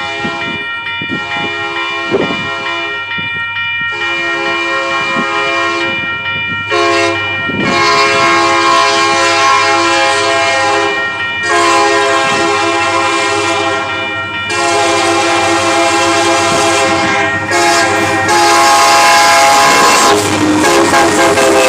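Freight locomotive's air horn sounding a series of long blasts, each a loud, steady chord with short breaks between, growing louder as the train approaches. Near the end the locomotive passes: the horn's pitch drops slightly and the rumble of the train rises under it.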